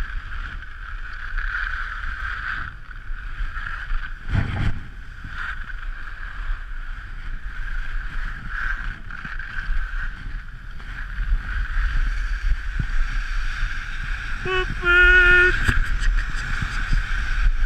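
Skis sliding over packed snow with a steady hiss and wind rumbling on the GoPro's microphone, with a single thump about four seconds in. Near the end a voice shouts briefly.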